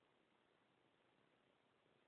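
Near silence: only a faint, steady recording hiss.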